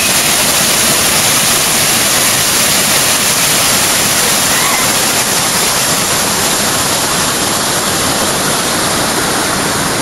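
A stream cascading over rocks into a pool, a steady rush of falling water.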